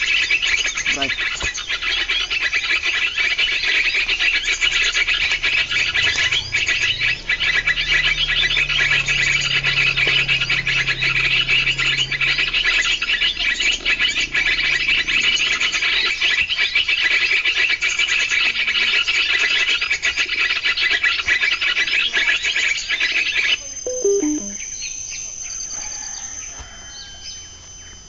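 Bird calls played as a trapping lure: loud, dense, rapid high-pitched chirping at a steady level, which cuts off abruptly about 23 seconds in.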